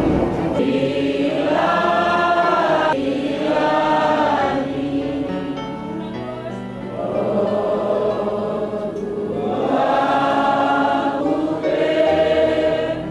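A group of voices singing a slow hymn in long held notes, phrase after phrase, softer for a moment about halfway through.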